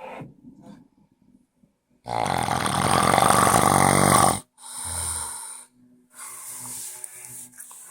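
A person snoring: one loud, long snore of about two seconds starting a couple of seconds in, then a shorter one, then a quieter stretch near the end.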